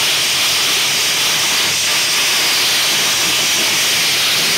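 Steady, loud hiss of a steam cleaner's jet blasting a wire fryer basket, stripping grease that has baked into carbon.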